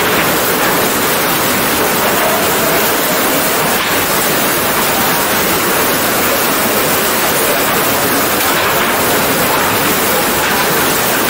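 Floodwater rushing steadily: a loud, even wash of moving water.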